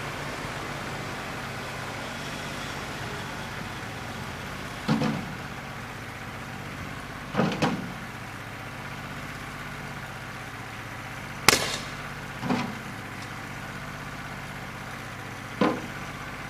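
New Holland 1320's three-cylinder diesel running steadily while missing on one cylinder, which the owner puts down to a bad injector. About six sharp metal clanks break in at uneven intervals, the loudest about two-thirds of the way through.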